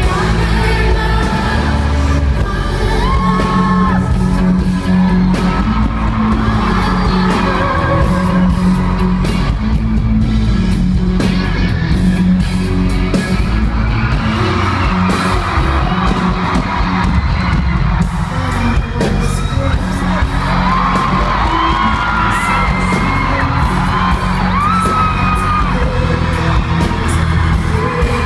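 Live pop-rock music played loud in a large hall, heavy in the bass, with a woman singing lead over the band's guitars, keyboards and drums. Fans close by yell and whoop along.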